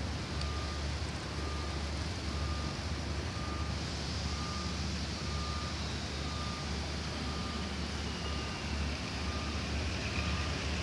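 An electronic warning signal beeping steadily at one pitch, about three short beeps every two seconds, over the low, steady rumble of an idling diesel locomotive.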